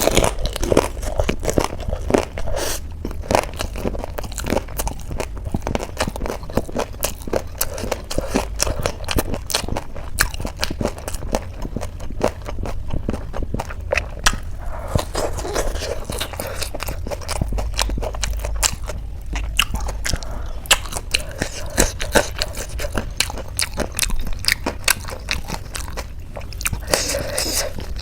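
A person chewing and crunching mouthfuls of crisp Indian street snacks close to the microphone, with a steady run of sharp crackles.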